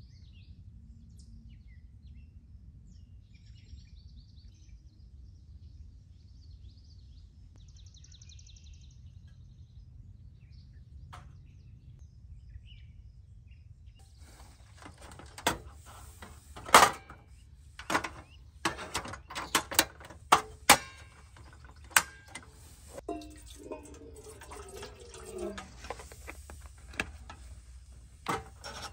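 Quiet outdoor ambience by a lake: a low steady rumble with a few faint bird chirps and trills. About halfway through it gives way to a string of sharp clicks and knocks from objects being handled and set down.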